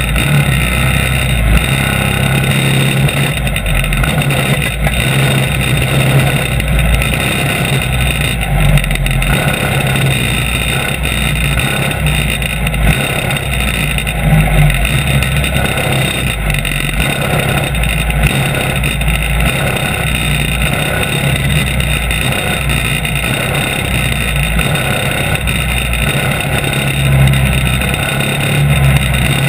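Go-kart engine running steadily under way, heard close up from an onboard camera mounted on the kart.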